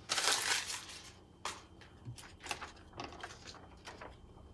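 A sheet of paper being handled and put up against a whiteboard: a burst of rustling at the start, then scattered soft crinkles.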